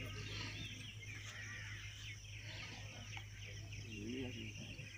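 Small birds chirping repeatedly, with a lower wavering call about four seconds in, over a steady low hum.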